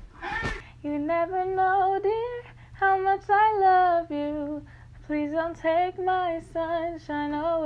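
A woman singing a tune in held notes, phrase after phrase with short breaks, after a brief bump at the start.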